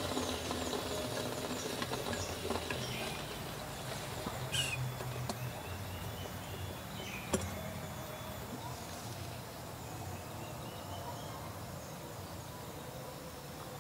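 Forest ambience with repeated short high chirps, a light knock about four and a half seconds in, and a sharp click about seven seconds in.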